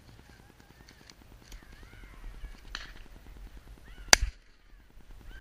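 Two shotgun shots about a second and a quarter apart, a left-and-right fired at flying ducks: the first about four seconds in, the second right at the end. Before the shots, birds are calling.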